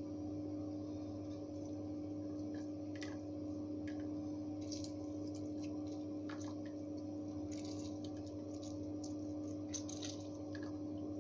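Soft wet squelches and light clicks of a lime half being squeezed by hand and a wooden spoon stirring blended cucumber juice in a plastic blender jug, over a steady hum.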